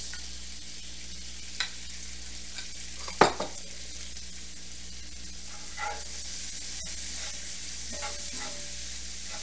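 Sliced onions sizzling in avocado oil in a cast-iron skillet with a steady hiss, cooking slowly to caramelize. A sharp knock about three seconds in and a few lighter clicks break through the hiss.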